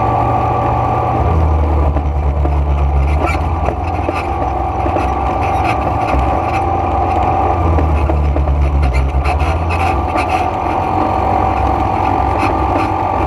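ATV engine running under way, its pitch rising and falling a few times as the throttle opens and eases, with scattered clicks and rattles over it.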